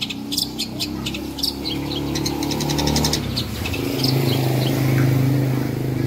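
Long-tailed shrike (cendet) singing: short, sharp high notes and brief rapid trills, scattered irregularly. A low steady hum underneath grows louder in the second half.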